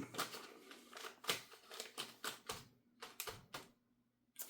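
Light, irregular clicks and taps of small hard parts being handled and set down, about eight in all, with a short pause near the end.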